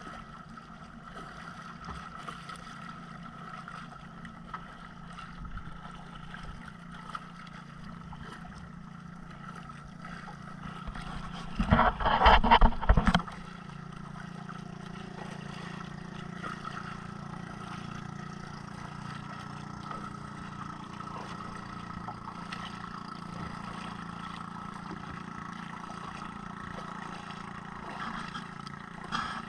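Small motorboat's engine running at a steady drone, with water rushing along the hull. About midway, a loud rough burst of noise lasts about a second and a half.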